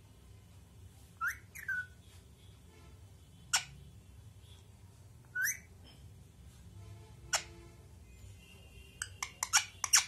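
Rose-ringed parakeet giving short, sharp whistled calls, a few seconds apart, some sweeping steeply upward, then a quick run of sharp calls near the end.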